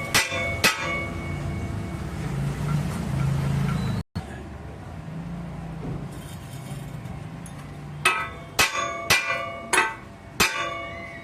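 Hammer blows on a steel sawmill wheel, each strike ringing like a bell: two near the start, then after a stretch of low hum, five more about half a second apart, beginning about eight seconds in. This is typical of hammering a bend out of the wheel.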